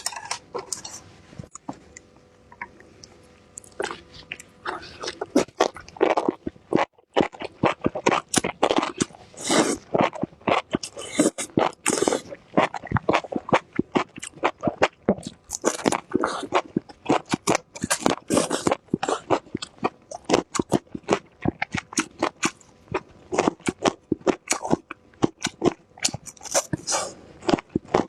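Close-miked eating of raw small chili peppers with spicy enoki mushrooms: crisp crunching bites and wet chewing in quick succession, sparse for the first few seconds and then nearly continuous.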